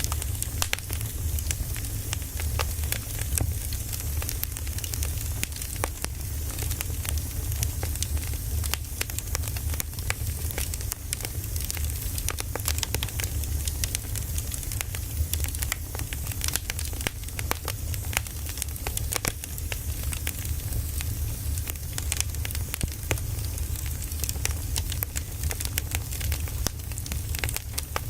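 Firewood burning, with frequent irregular crackles and pops over a steady low rumble.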